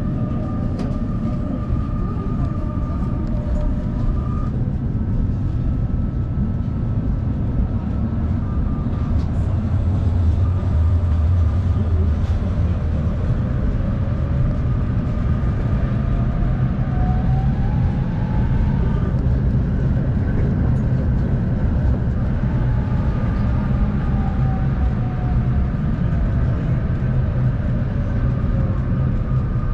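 Inside a moving tram: a steady rumble of wheels on rails, with the electric traction motors' whine rising in pitch in the middle and falling again near the end as the tram speeds up and then slows.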